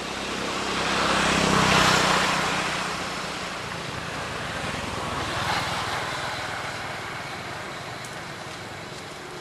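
A motor vehicle passing by: engine hum and road noise swell to a peak about two seconds in and fade away, with a second, fainter swell a few seconds later.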